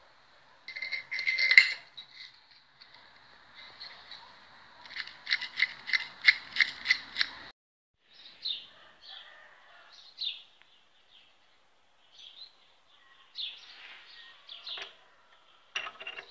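Small steel parts clattering and clinking as they are handled, with a quick run of about ten ringing metal taps, roughly four a second, a few seconds in. Later come scattered light metal clicks and scrapes.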